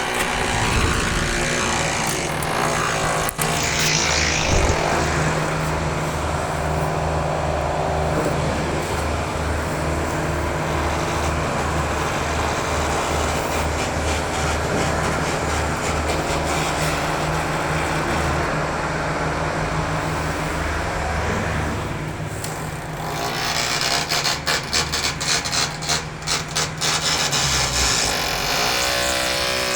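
Loud unidentified machinery noise reaching the apartment: a steady mechanical drone with a low throb about twice a second, then a fast stuttering rattle for the last several seconds.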